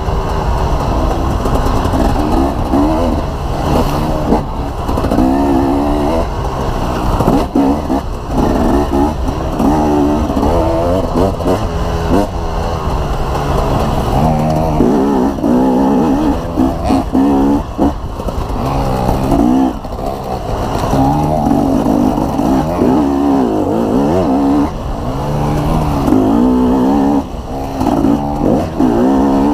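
Dirt bike engine revving up and down again and again as it rides a rough trail, with knocks and jolts mixed in.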